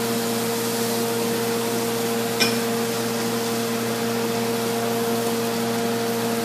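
A kitchen fan motor running with a steady hum and hiss, with a single short click about two and a half seconds in.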